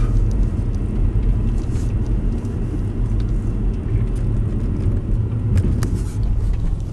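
Steady low rumble of a car being driven: engine and road noise.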